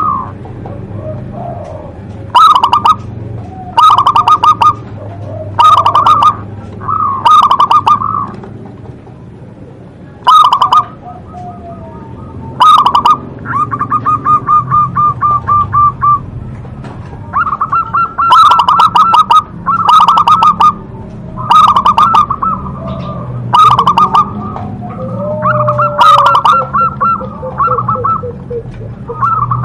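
Zebra dove (perkutut) singing loudly and repeatedly: about a dozen short, rapidly pulsed cooing phrases a second or two apart, with a longer, even trill in the middle. A steady low hum sits underneath.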